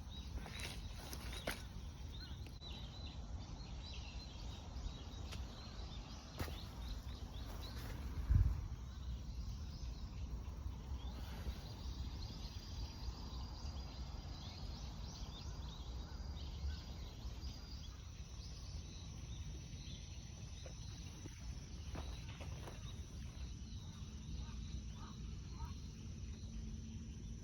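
Outdoor field ambience: a steady low rumble with faint scattered bird chirps and, in the second half, a thin steady insect trill. A single thump about eight seconds in, and a few light clicks at the start.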